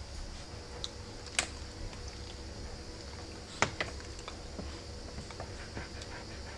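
One-week-old rough collie puppies suckling at their mother: faint, irregular small clicks and smacks, with a sharper click about a second and a half in and another just past halfway, over a low steady hum.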